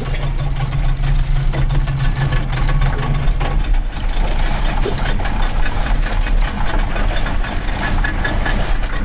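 Speedboat engine running at low speed, a steady low hum; about four seconds in the hum thins and a rougher rushing noise takes over.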